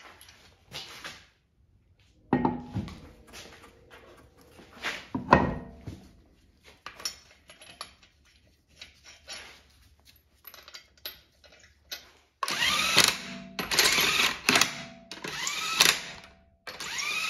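Road wheel being hung on the hub and lug nuts threaded on by hand: scattered clinks and a couple of louder knocks. Then, for the last few seconds, a cordless power tool spins the lug nuts onto the wheel studs in four short bursts, its motor rising in pitch in each one.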